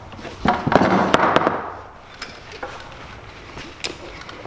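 Metal buckle and adjuster hardware on four-point harness webbing clattering and rattling while being handled. The burst comes about half a second in and lasts about a second, followed by a few sharp single clicks.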